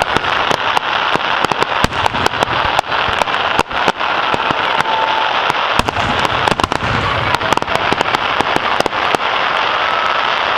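A fireworks display crackling: a dense, unbroken stream of sharp pops over a steady hiss, with a few short faint whistles.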